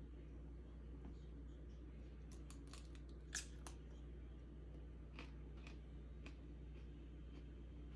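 Faint crisp crunches of a piece of raw sweet pepper being bitten and chewed, a quick cluster with the loudest crunch a little before the middle and a few softer ones later, over a steady low hum.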